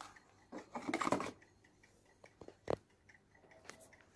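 Light handling noise: a short scraping rustle about a second in, then a few sharp small clicks and taps, one louder click a little past halfway.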